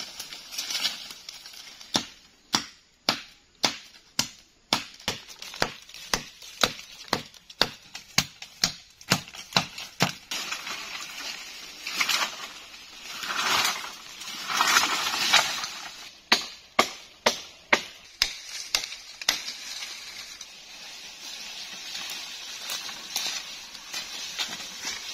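A blade chopping into a sapling's trunk: a long run of sharp strikes, about two a second, then loud rustling of leaves and branches in the middle, and a few more strikes after it. A quieter rustle of undergrowth near the end.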